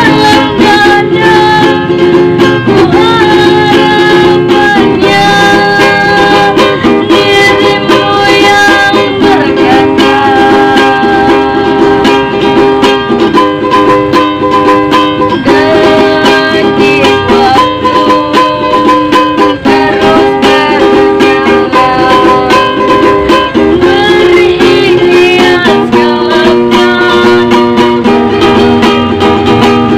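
Ukulele strummed as song accompaniment, its chords changing every second or two.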